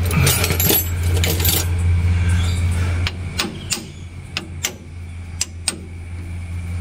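Steel spanner clinking and ratcheting against the cover bolts of a Massey Ferguson MF 188's hydraulic housing: a quick run of clinks at first, then about seven separate sharp metal clicks, over a steady low engine hum.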